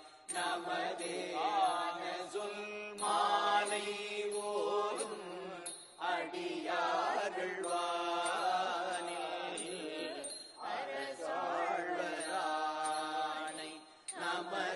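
Shaivite devotional hymn chanting in Tamil, sung in long melodic phrases that bend in pitch, with brief breaks between phrases and a steady low drone under part of it.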